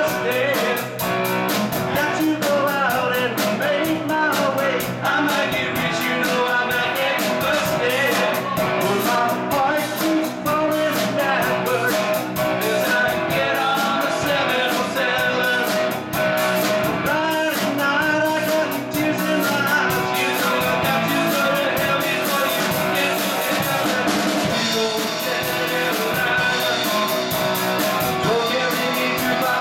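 Live rock band playing: two electric guitars, bass guitar and a drum kit with a steady run of cymbal strokes, with a man singing lead.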